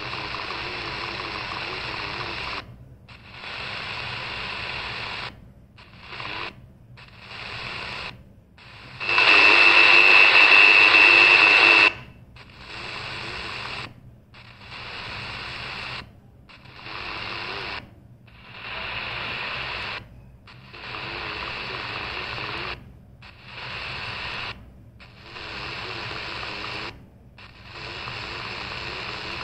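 CS 106 DSP radio's speaker playing medium-wave AM static as it is stepped up the band. The sound cuts out briefly with each tuning step, about a dozen times. About nine seconds in, one frequency brings a much louder rush of noise with a steady high whistle, lasting about three seconds.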